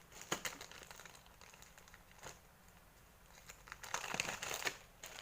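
Crinkling and rustling handling noise with scattered light clicks as a cleaning cloth is fitted onto a small robot floor cleaner, busiest about four seconds in.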